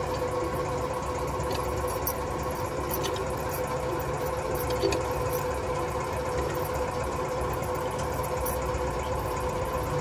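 A machine running with a steady hum and low rumble, with a few light metallic clicks from a wheel wrench on a truck wheel's nuts.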